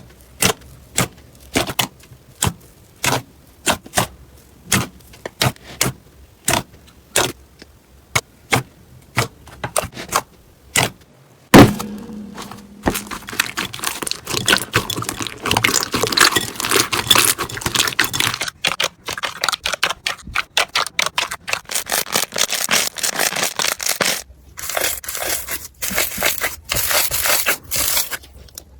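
Crunchy slime being pressed and worked, giving sharp crackling pops. For about the first eleven seconds the pops come singly at a steady pace of about two a second. Then a sudden loud crack leads into dense, continuous crackling and crunching, which thins out and then turns into a fast, high-pitched crackle near the end.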